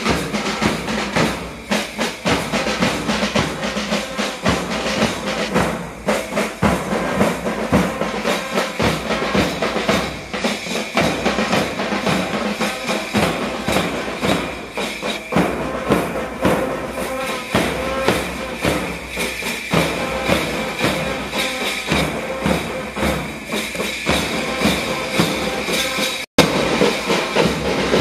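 School band playing: fast, dense drumming with steady held notes sounding over it. The sound breaks off for an instant near the end.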